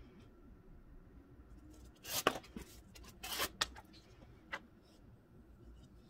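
Folding pocket knife being worked in the hand: a few short scrapes and sharp clicks as the blade is swung shut and opened again.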